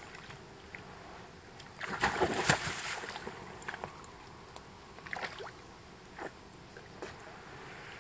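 Water splashing and sloshing with scattered light knocks, loudest for about a second some two seconds in.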